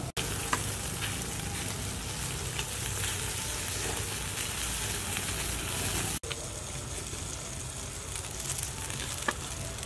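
Small fish sizzling on a wire grill rack over a charcoal fire: a steady hiss with a few light clicks. It cuts off abruptly about six seconds in and gives way to a quieter hiss.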